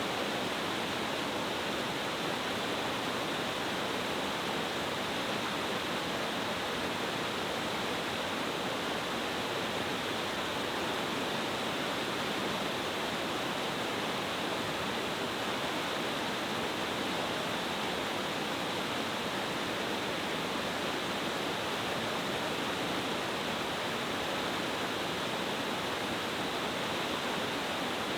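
Mountain gorge waterfall, a powerful multi-tiered cascade, rushing in a steady, unbroken roar of water.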